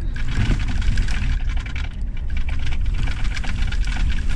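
Pickup truck driving over a rough, graded gravel desert road, heard from inside the cab: a steady low rumble from the tyres and engine, with a constant crackle of small clicks and rattles from gravel under the tyres and the shaking cab.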